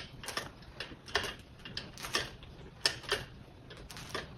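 A string of irregular sharp metal clicks from a wrench turning a stiff bolt into a metal table frame. The bolt is binding and takes a lot of force, which the assembler puts down to the threads on this side.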